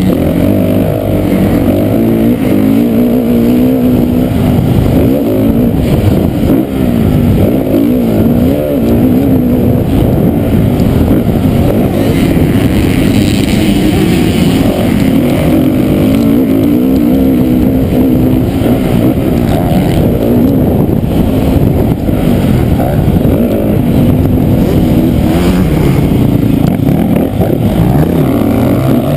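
Motocross dirt bike engine at race pace, heard up close from the bike itself: loud, its pitch rising and falling over and over as the rider opens and closes the throttle and shifts.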